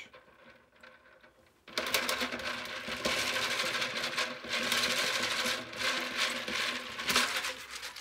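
Small plastic Cherry MX switch housings clattering and rattling against a plastic salad-spinner basket as they are stirred and rubbed around by hand while being rinsed in distilled water. The dense rattle starts suddenly a little under two seconds in and keeps going.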